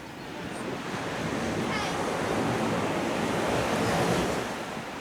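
Sea surf washing onto the beach: one wave's rush builds, peaks about four seconds in and then ebbs, with wind buffeting the microphone.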